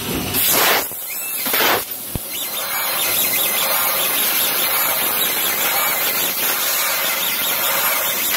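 Fiber laser cutting machine cutting sheet steel, its cutting head's gas jet making a loud, high-pitched hiss. Two short louder blasts of hiss come near the start, then a sharp click about two seconds in, after which the hiss runs steadily.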